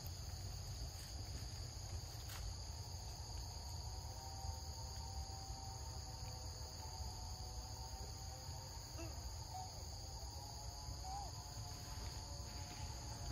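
Steady, high-pitched chorus of forest insects, an even drone with no pauses, over a low rumble; a few faint short calls come through about nine to eleven seconds in.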